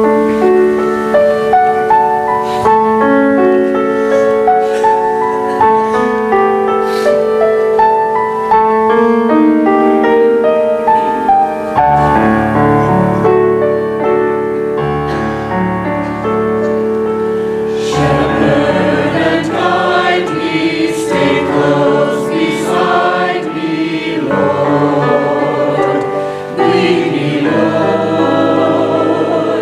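Choir singing with instrumental accompaniment; a deeper bass part comes in about twelve seconds in.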